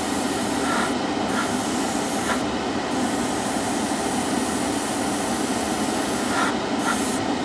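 Harder & Steenbeck Infinity airbrush spraying lacquer paint at 24 psi: a steady hiss of air and paint with a slight whistle. By the noise, the sprayer guesses the paint needs thinning a little more.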